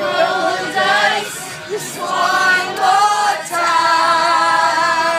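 A group of teenagers singing together, several voices at once, ending on a long held note.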